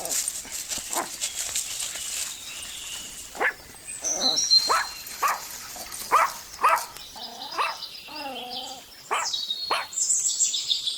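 A dog barking repeatedly in short calls, with a couple of longer wavering whines, while birds chirp.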